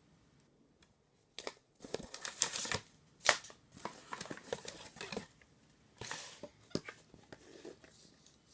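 Plastic casing of a household gas leak alarm being handled during replacement: a run of clicks and rustles, with one sharp click about three seconds in.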